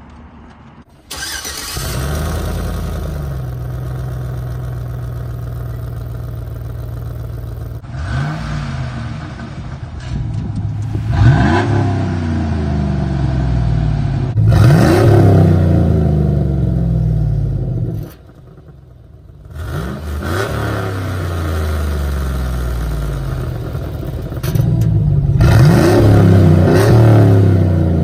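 Chevy Silverado pickup engine starting about a second in, then idling and revved several times, heard through a newly fitted electric exhaust cutout. The revs are louder from around halfway and again near the end, and the sound drops out briefly in between.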